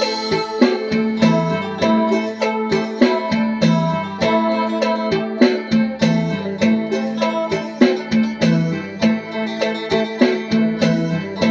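Phin, the Isan Thai plucked lute, playing a fast melody of plucked notes over a steady drone string.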